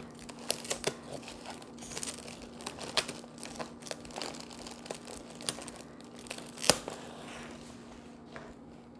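Crinkly wrapping material rustling and crackling in irregular bursts as items are handled and set in place, with one sharper crackle about two-thirds of the way in.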